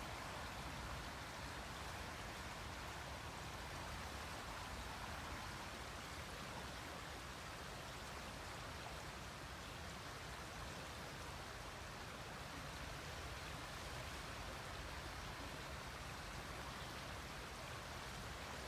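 River water flowing, a steady even rush without breaks.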